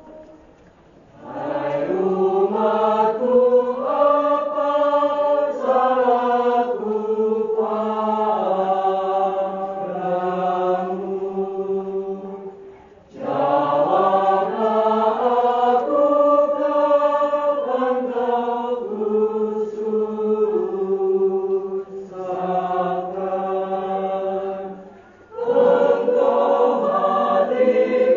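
Mixed choir of men and women singing a slow church song with long held notes. The song runs in two long phrases with a short breath between them, and a third phrase begins near the end.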